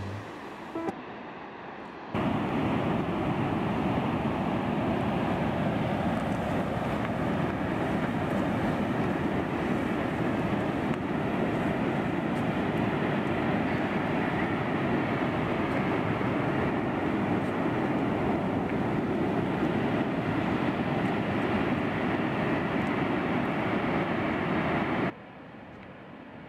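Steady, even rushing noise in the open air, like distant rushing water or wind. It starts abruptly about two seconds in and cuts off abruptly near the end.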